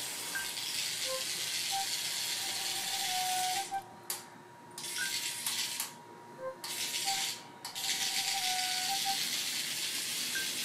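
Remote-control toy centipede crawling on a tile floor: a steady high rattle from its motor and plastic legs, cutting out briefly three times midway and starting again.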